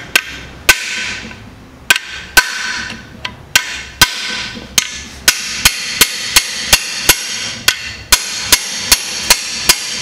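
Hammer blows on a steel combination wrench wedged into a rusted core plug in a Chevrolet Corsa GSI 1.6 16v engine block, each a sharp metal-on-metal strike with a ringing tone. A few spaced blows come first, then a steady run of about three a second from halfway. This is the sound of driving out a freeze plug seized by rust.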